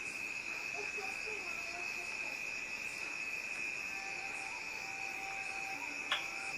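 Crickets trilling steadily at one high pitch, with a single click near the end.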